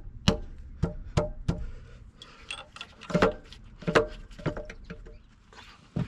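Sharp metallic clicks and clinks of hand tools working engine bolts: a quick run of clicks in the first second and a half, then scattered clinks.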